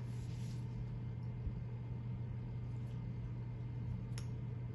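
Steady low hum with a faint hiss of room tone, and a few faint light clicks of the vinyl stencil sheet and transfer paper being handled, the clearest about four seconds in.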